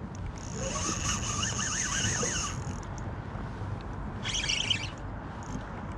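Spinning reel whirring under load while a hooked sheepshead is fought on light line: one stretch of about two seconds, then a shorter one a little past the middle, over steady wind and water noise.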